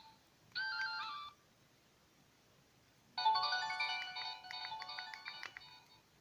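Samsung GT-E1200R ringtone melodies played through a Sagem my-E77 phone's small speaker. A short phrase of notes comes just after the start, then after about two seconds of quiet a longer, louder melody that dies away near the end.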